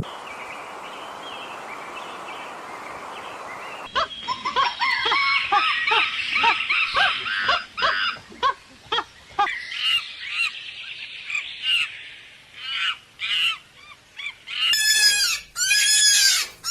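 A flock of waterfowl calling, faint at first, then many rapid honking calls from about four seconds in. Near the end a louder series of high, arched squealing calls begins.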